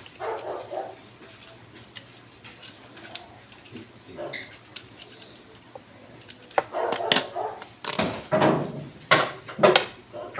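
A dog barking: a few barks about a second in, then a run of louder barks in the last four seconds.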